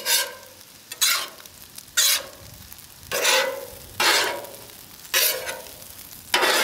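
Metal spatula turning and scraping fried rice on a hot flat-top griddle, a sharp burst of sizzling and scraping with each stroke, about once a second, over a low steady frying hiss.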